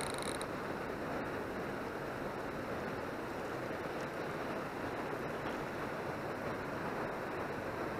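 Steady rush of river water along the rocky shore, with wind on the microphone.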